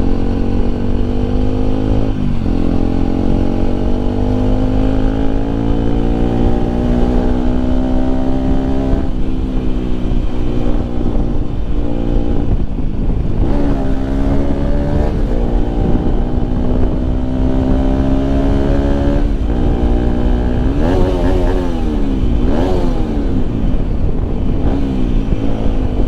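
Bajaj Pulsar RS 200's single-cylinder engine on its stock exhaust, riding under way. The pitch climbs slowly under acceleration and drops sharply at gear changes about two, nine, thirteen and nineteen seconds in. Near the end come a few quick revs up and down, over a steady low wind rumble on the microphone.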